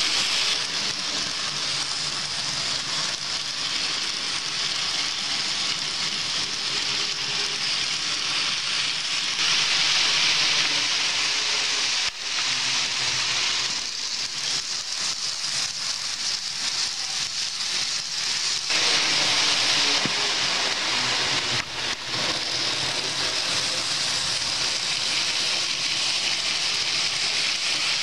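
N-scale Fleischmann InterCity model train running on the track, a steady hissing rattle of wheels on rail and the small motor, swelling and easing as the train passes close.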